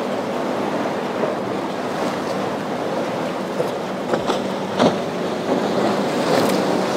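Waves and surf washing through an inlet, with wind buffeting the microphone and a boat engine running faintly underneath. A few sharp knocks come a little past halfway, the loudest at about five seconds.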